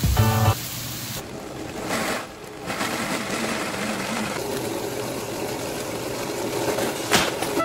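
Countertop blender motor running steadily, lightly pureeing a jar of cooked zucchini, carrot, bell pepper and onion.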